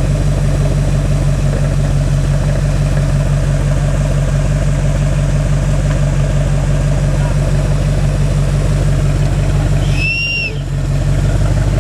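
Off-road competition vehicle's engine running steadily. About ten seconds in the engine briefly drops in level, and a short high squeak sounds.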